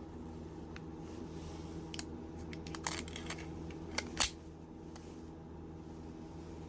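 A run of sharp mechanical clicks and snaps about two to three seconds in, then two louder snaps just after four seconds, over a steady low hum.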